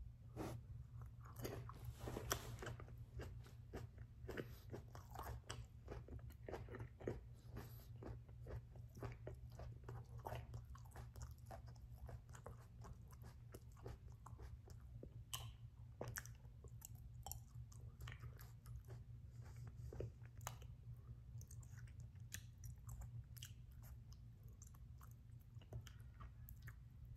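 Close chewing and crunching of a raw Dorset Naga chili pod, seeds and all, heard as a long run of small crisp clicks. A steady low hum sits underneath.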